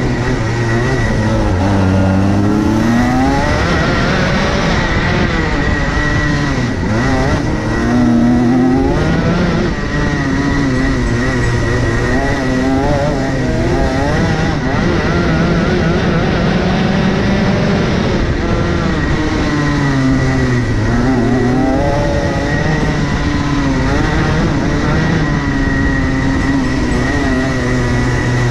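Racing kart engine heard on board at race pace, its pitch rising and falling again and again as the throttle is opened and closed through the corners, with a steady high whine over it.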